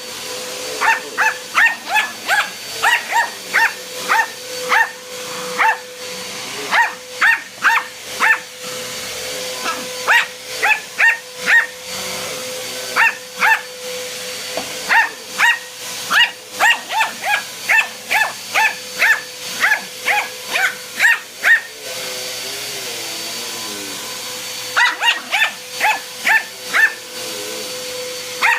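A dog barking repeatedly in quick runs of short, sharp barks, about two or three a second, over the steady hum of a running vacuum cleaner motor. The barking breaks off briefly several times, with a longer pause about three-quarters of the way through.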